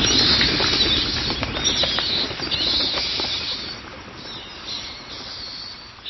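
The 'Bats' seasonal doorbell sound for a Ring doorbell on an Amazon Echo: a sound effect of bat wings flapping, loud at first and fading away over the second half.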